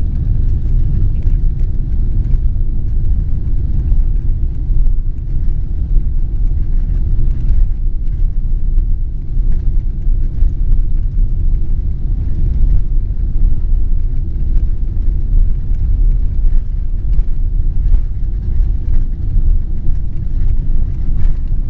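Steady low rumble in the cabin of a Boeing 777-300ER taxiing, its GE90 engines at low power and its wheels rolling over the taxiway.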